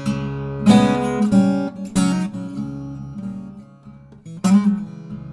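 Acoustic guitar playing a blues, with strong strummed chords about two-thirds of a second in, at about two seconds, and near the end.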